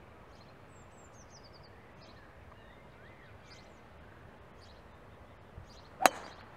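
A single sharp click of a golf club striking a teed ball, just after six seconds in. Small birds chirp faintly in the background throughout.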